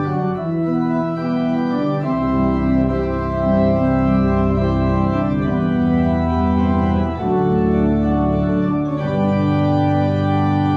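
Organ playing slow chords, with deep bass notes coming in about two seconds in and the harmony changing twice near the end.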